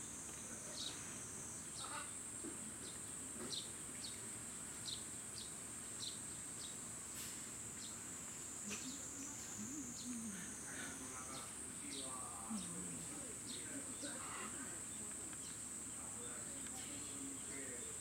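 A steady high-pitched drone of insects, with scattered short chirps and faint distant voices.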